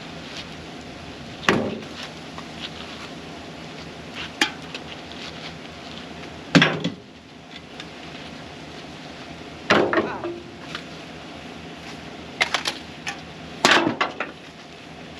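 Light empty cans thrown one at a time at a dumpster: about four sharp clanks and rattles a few seconds apart, with steady wind noise behind.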